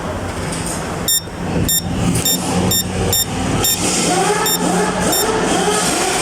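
GDI fuel injector test machine being set up for its high-pressure spray test: about eight short electronic beeps at uneven intervals over the machine's steady low hum.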